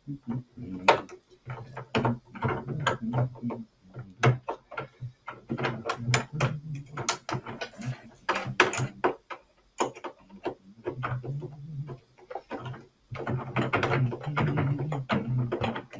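Hand screwdriver turning screws into a plastic utility cart's frame, with many sharp clicks and knocks of the tool and plastic parts. Repeated low, hum-like stretches about a second long run between the knocks.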